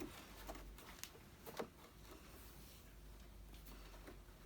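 Near silence: quiet room tone with a few faint, short clicks, the loudest about a second and a half in.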